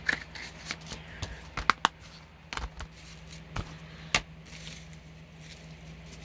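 Plastic Blu-ray case being handled: scattered sharp clicks and knocks, the loudest nearly two seconds in and about four seconds in, over a steady low hum.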